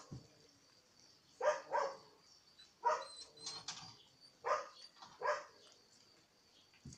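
Puppies giving short, sharp yips and barks, about six spread over several seconds.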